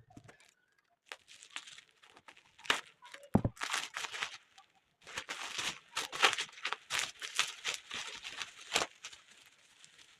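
Packaging of a hair straightener rustling and crinkling as it is handled and opened, in uneven bursts, with a single knock a little over three seconds in.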